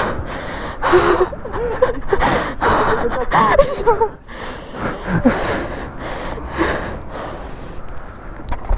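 Out-of-breath gasps and short wordless exclamations from a person climbing down off a plastic wheelie bin, with knocks and rustling of the bin and handling close to the microphone.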